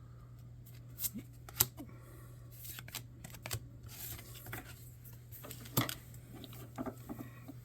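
Trading cards being handled and flipped through: irregular light clicks and snaps of card stock, over a low steady hum.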